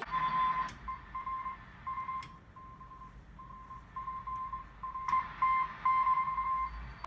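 Morse code signal heard on an RCA AR88LF shortwave receiver: a single tone keyed on and off in dots and dashes over band hiss, with a few sharp clicks.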